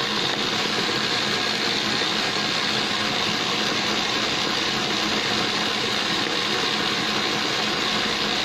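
KitchenAid Artisan stand mixer running steadily at high speed, its wire whisk beating buttercream in a stainless steel bowl.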